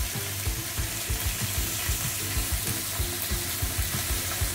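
Meat and chopped vegetables sizzling as they brown in a large stockpot, stirred with a metal spoon that knocks softly and often against the pot.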